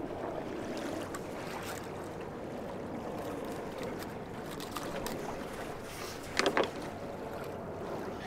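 Steady wind and water noise around an open fishing boat, with one brief louder sound about six and a half seconds in.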